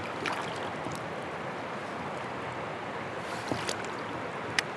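A northern pike being released by hand beside a kayak: a few small splashes and drips in the water over a steady rush of moving river water.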